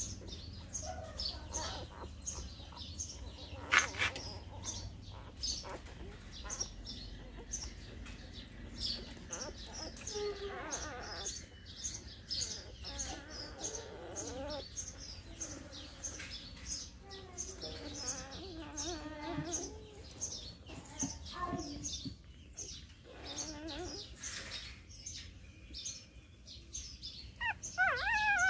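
Newborn puppies squeaking and whimpering faintly while they suckle, with a louder wavering whine near the end. Small birds chirp over and over in the background.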